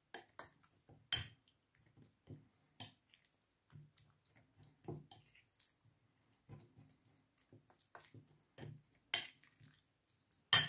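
Fork mashing oily canned tuna in a ceramic bowl: soft wet squishing with irregular small clicks of the metal tines against the bowl, and one sharper click near the end.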